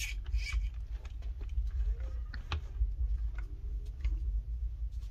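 Scattered light clicks and taps from an Arrma Senton RC truck's plastic chassis and suspension as hands press and handle it on a table, over a steady low hum.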